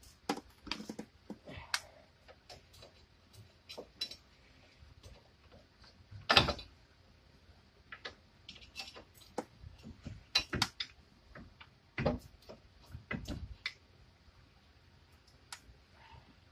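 Irregular metallic clicks, clinks and knocks of a brake caliper and hand tools being handled at a car's front wheel hub, as the removed caliper is hung up out of the way. The loudest knock comes about six seconds in, with a few more heavy knocks around twelve and thirteen seconds.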